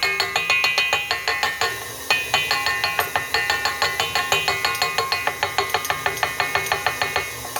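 A utensil beating batter in a mixing bowl, striking the bowl rapidly, about six times a second, each strike making the bowl ring. There is a brief pause about two seconds in, and the strikes stop shortly before the end.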